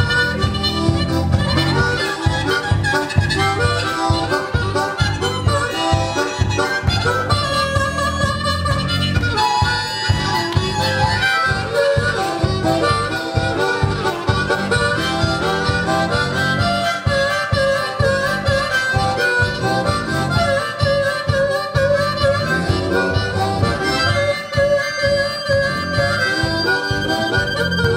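Harmonica solo played with cupped hands into a vocal microphone, amplified through the PA, over a live band's electric bass and drums playing a steady blues-rock beat.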